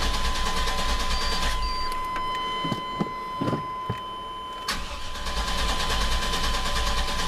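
A truck's engine cranking on the starter without firing. The starter stops about a second and a half in, and after a gap of about three seconds with a few small clicks it cranks again. It is a no-start even with a freshly replaced distributor cap and rotor.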